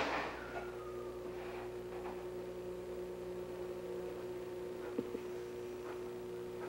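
Steady electrical hum: a low buzz with a steady tone above it, and a single faint click about five seconds in.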